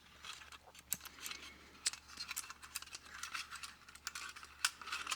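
Faint light clicks, taps and rattles of small tin wind-up toy robots being handled, with a few sharper ticks about one, two and nearly five seconds in.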